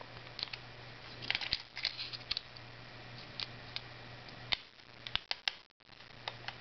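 Small plastic clicks and snaps as the plastic face cover of a Panasonic electric shaver is pressed and clipped onto the body, in a few quick clusters with rubbing from the handling.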